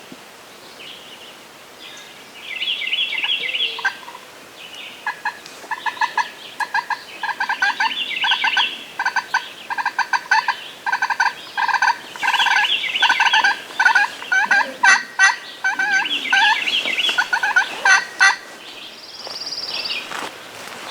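Wild turkey gobbling: a long run of loud, rapid rattling notes from about five seconds in until near the end. High trilling songbird calls come before it.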